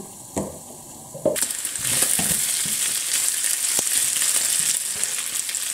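Ground beef and diced potatoes sizzling in a frying pan: the sizzle comes up suddenly and loud about a second in as the glass lid is lifted, then a wooden spatula stirs and scrapes through the mix.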